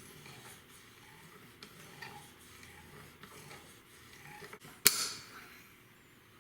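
Buck 103 blade being worked on a Xarilk Gen 3 knife sharpener: soft scraping strokes with a few light clicks, then one sharp clack just before five seconds in.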